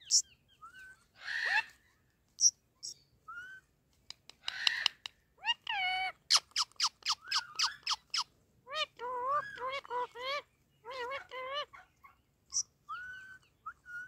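Indian ringneck parakeet calling: short high squeaks and harsh squawks, a rapid run of sharp notes about halfway through, then choppy, squeaky, speech-like chatter.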